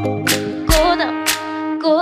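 Music with a steady beat: sustained instrumental tones over a drum hit about every half second or so.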